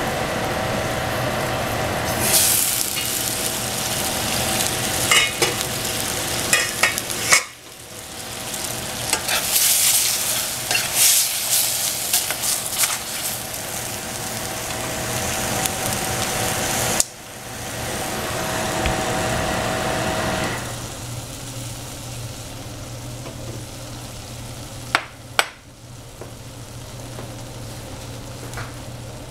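Food sizzling as it fries in oil in a pan, with a utensil stirring and scraping through it. The sizzle drops out and comes back abruptly a few times, and two sharp clicks come near the end.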